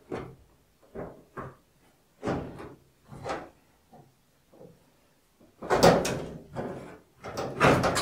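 Dryer's metal front panel being pried loose from its clips: a few light knocks, then two louder clunking rattles in the second half.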